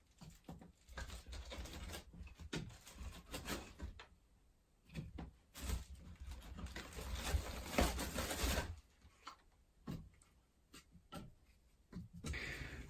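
Faint rustling of a woven plastic sack and light knocks as firewood is taken out of it by hand to stoke a wood stove, busiest in the middle.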